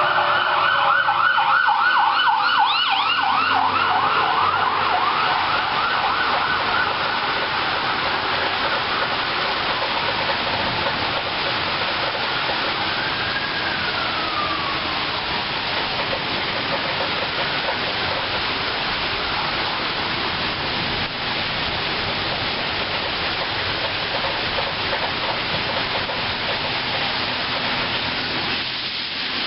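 Emergency vehicle sirens passing: a fast warbling yelp for the first several seconds, then a slower wail that rises and falls and fades away about halfway through. A steady hiss of rain continues underneath.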